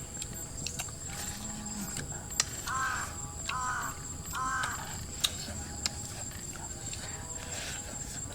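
A bird gives three short, harsh calls evenly spaced about a second apart, with a few sharp clicks scattered around them and a steady high insect-like background tone.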